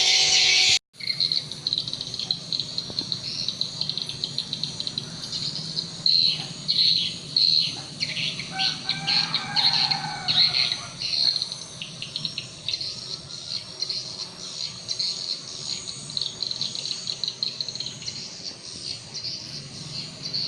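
Swiftlets twittering: a dense, steady chatter of rapid high chirps with quick falling notes. A snatch of guitar music cuts off abruptly under a second in.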